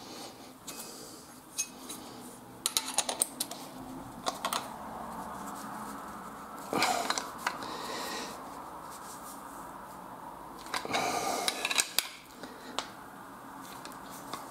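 Short clusters of metal clicks and clinks from an open-end spanner tightening the nut on a threaded steel rod, which clamps a stack of glued wooden discs together, with handling rattles in between.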